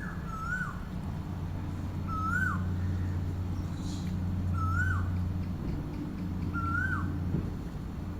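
A bird repeating a short whistled call that rises and then falls, about once every two seconds, five times. Fainter high chirps from other birds come through, over a steady low rumble.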